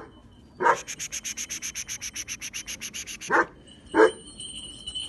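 A dog barking, four short barks with the loudest about four seconds in. Between the second and third barks comes a fast, even rasping of about ten strokes a second that lasts a couple of seconds.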